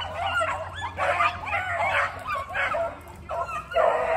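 Pack of rabbit hounds baying and yipping in overlapping calls while running a rabbit, with a short lull about three seconds in.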